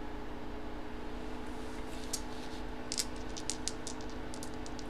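Dice being shaken and rolled: a quick irregular run of small sharp clicks in the second half, over a steady electrical hum.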